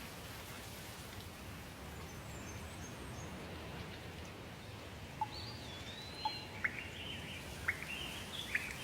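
Steady rain with birds chirping. About halfway in, a bird begins a series of sharp chirps and whistled notes over the rain.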